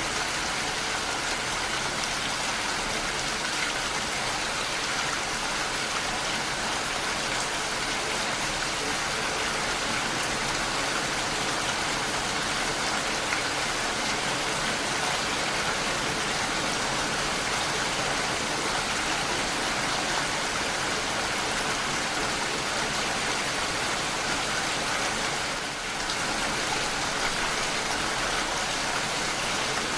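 Steady, heavy rainfall: a dense, even hiss of rain falling, with a brief slight lull about 26 seconds in.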